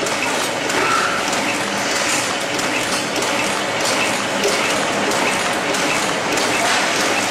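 Automatic tea bag packing machine running: a steady mechanical clatter from its rotary tag wheel and feed mechanisms, with a faint regular ticking.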